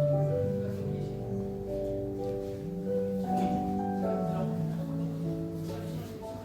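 Electronic keyboard playing a slow hymn: held chords under a melody, the notes changing about once a second.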